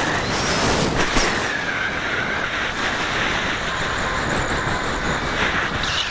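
Steady rushing wind noise on the microphone of a camera carried by a falcon in fast pursuit flight, with a faint wavering whistle and a louder gust about a second in.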